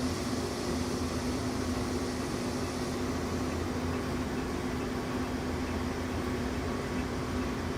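A steady mechanical hum with a constant low tone over an even hiss; the upper hiss softens about three seconds in.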